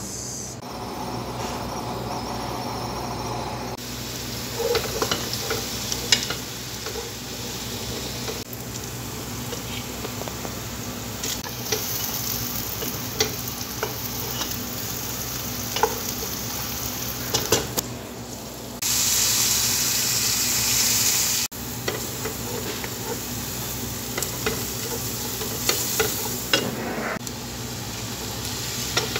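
Chopped onion sizzling in hot oil in a metal pot, with a utensil clicking and scraping against the pot as it is stirred. About two-thirds through, the sizzling turns louder and hissier for a couple of seconds.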